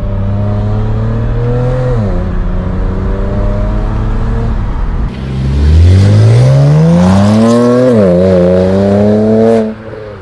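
BMW 335i's twin-turbo N54 straight-six running through a new full exhaust, first at a steady cruise, then about five seconds in accelerating hard and louder. The engine note climbs, dips once, climbs again, and cuts off suddenly near the end.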